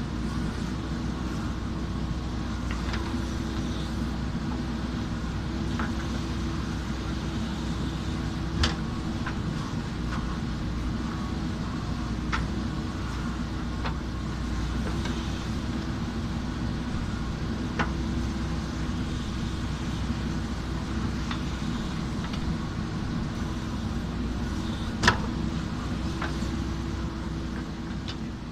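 JCB backhoe loader's diesel engine running steadily, with a few sharp knocks, the loudest about a third of the way in and near the end. The sound fades out in the last moments.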